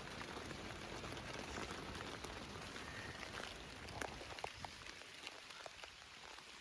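Steady rain falling, a soft even hiss with scattered individual drops ticking; it eases slightly over the last second or two.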